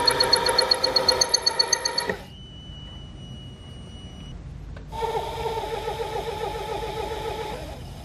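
Small hobby lathe cutting a 5 mm steel shaft: the tool chatters against the steel in a loud, pulsing squeal for about two seconds, then the cut stops and only the lathe's steady high whine is left, until a second pulsing chatter starts about five seconds in and stops shortly before the end. The chatter comes from the tool vibrating in the cut, which the maker puts down to the small machine's insufficient strength.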